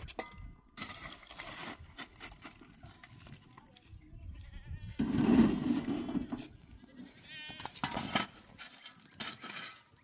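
Sheep or goat-type livestock bleating, including one quavering call a little over seven seconds in. The loudest sound is a rough, harsh one about halfway through that lasts over a second.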